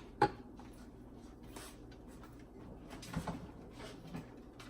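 Kitchen handling sounds while seasonings are measured: one sharp click just after the start, like a container cap or lid, then faint clinks and rustles, over a low steady hum.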